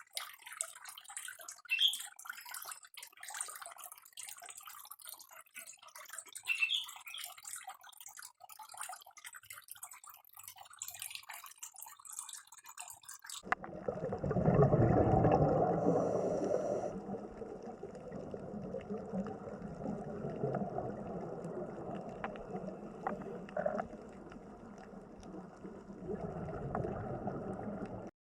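Water sounds. For the first half it is a thin, crackly trickle with many small clicks and splashes. About halfway in it switches abruptly to a louder, fuller gurgling rush of water that runs on and then cuts off just before the end.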